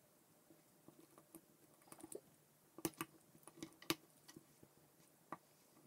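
Hard plastic K'NEX rods and connectors clicking and snapping together as they are handled and pressed into place. It comes as a scatter of short, sharp clicks, the loudest bunched in the middle, with one more near the end.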